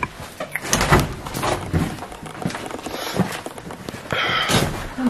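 Scattered footsteps, knocks and thuds of people walking through a small hard-walled room, with a short rustling burst about four seconds in.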